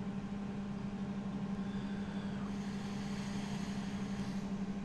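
A steady low machine hum with one strong, even tone and a slight regular flutter in level. A faint rustle rises over it from about halfway in to near the end.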